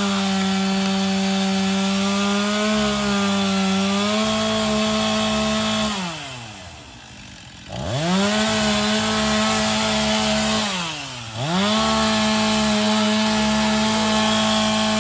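Gas chainsaw's two-stroke engine running at high revs. The throttle is let off twice, about six and about eleven seconds in: the pitch falls away, then revs back up to full speed.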